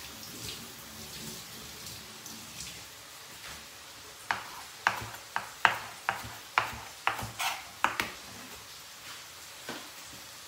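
Faint sizzling from a frying pan, then about ten sharp clinks of kitchen utensils against dishes or cookware, two or three a second, for some four seconds.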